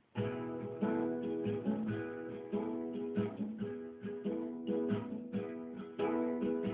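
Instrumental song intro on acoustic guitar, chords strummed and plucked in a steady rhythm. It starts suddenly out of near silence right at the beginning.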